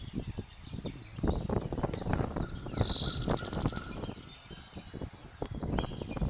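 Small birds chirping, with one loud downslurred call nearly three seconds in, over soft knocks and rustling close by.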